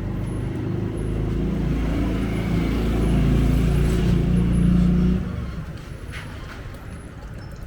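A motor vehicle engine running close by, a low hum that grows louder and then cuts off abruptly about five seconds in, leaving quieter street noise.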